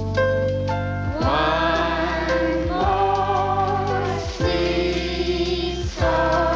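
Music: a group of voices singing long held notes, each sliding up into pitch, over a steady instrumental backing.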